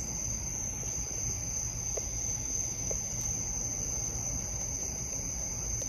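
Steady high-pitched chorus of night insects, with a low steady rumble beneath it.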